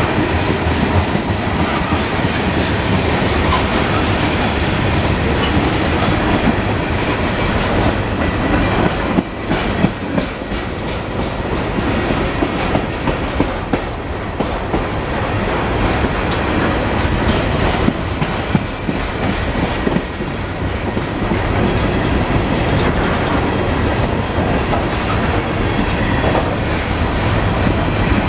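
Cars of a long freight train rolling past on jointed rail: a steady rumble of wheels with clickety-clack over the joints, and bursts of sharp clanks about ten seconds in and again near nineteen seconds.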